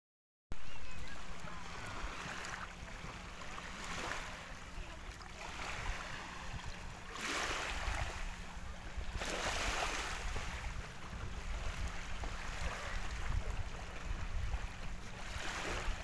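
Small waves washing onto a sandy beach in gentle surges every second or two, over a low steady rumble.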